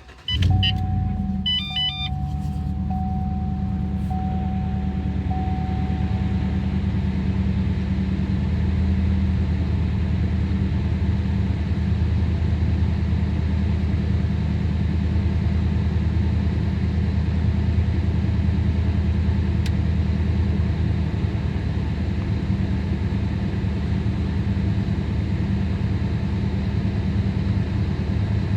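Car engine starting cold, catching right away and settling into a steady idle that the owner diagnoses as misfiring on cylinder 2. Dashboard warning chimes beep about two seconds in, and a steady chime tone fades out after about six seconds.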